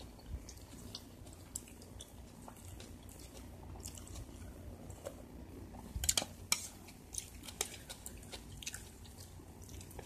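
Close-up chewing of food with small mouth clicks. About six seconds in comes a cluster of sharp clicks as a metal spoon scrapes and scoops rice on a plate.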